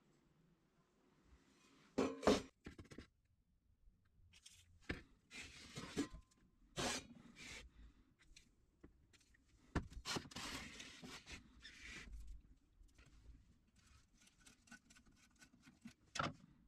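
A sheet-metal cover clatters onto a wooden workbench about two seconds in, then a WD-40 aerosol can hisses in several short bursts through its straw onto rusty terminals, the longest about two seconds. Light metallic ticks follow, with a sharp knock near the end.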